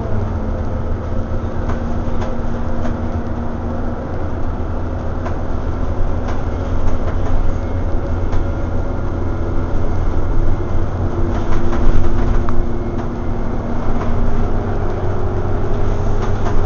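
Scania OmniCity single-deck bus driving along, heard from inside the saloon: a steady low engine and drivetrain drone with a faint whine that steps up in pitch around the middle and again near the end, plus occasional rattles and knocks from the body.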